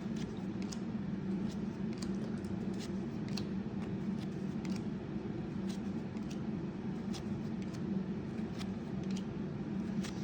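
Light, irregular clicks and flicks of trading cards being handled and flipped through by hand, over a steady low hum.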